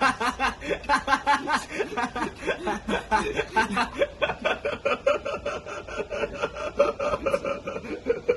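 Young men laughing mockingly in a long, unbroken run of quick 'ha-ha' pulses, about five or six a second, at someone who has just asked what a microwave is.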